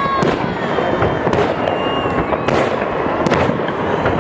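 Fireworks salute: a continuous dense crackle of bursting shells, with about five loud sharp bangs spread through it.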